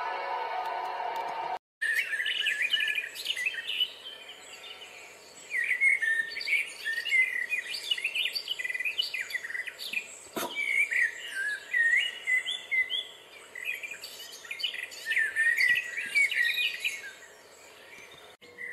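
Several small songbirds chirping and singing in a busy chorus of short trills, over a faint outdoor hiss. A short stretch of music cuts off about a second and a half in, and a single sharp click comes partway through.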